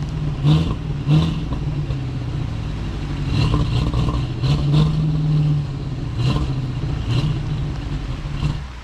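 Carburetted 3.5-litre V8 of a 1989 off-road 4x4 running hard and revving, its pitch rising and falling several times, through a nearly original exhaust, with a few knocks mixed in.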